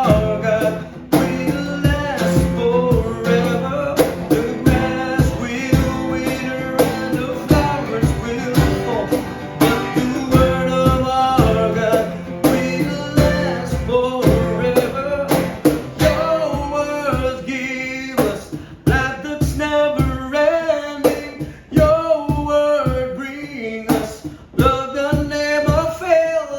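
Worship song: a singing voice over guitar accompaniment with a steady drum beat.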